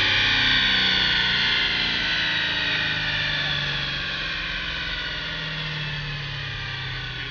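Diesel Ford Super Duty pickup coasting down on a chassis dyno after a full-throttle pull: a high whine slowly falls in pitch and fades as the drivetrain and dyno rollers spin down, over the low hum of the engine settling to idle.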